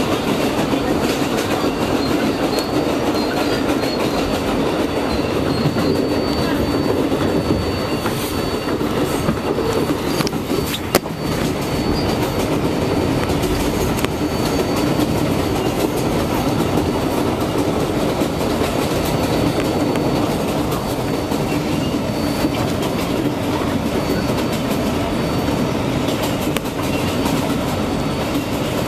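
New York subway R142A train heard from on board, running at speed, its wheels clattering steadily on the rails. A single sharp click comes about eleven seconds in.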